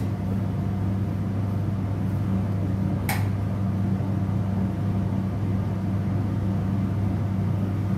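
Laboratory fume hood's extraction fan running with a steady hum. A single sharp click about three seconds in.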